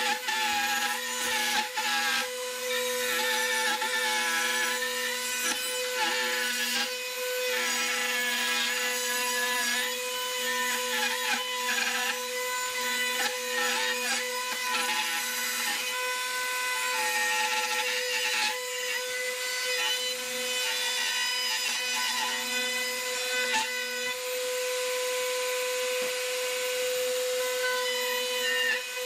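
Table-mounted router running steadily with a constant whine while its bit cuts along the edge of a curved wooden board fed past the fence, the cutting noise rising and falling as the wood moves.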